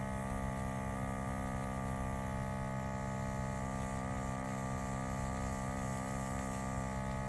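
Jodi-Vac hearing-aid vacuum's small suction motor running with a steady hum while it suctions wax out of AirPods' microphone and speaker openings.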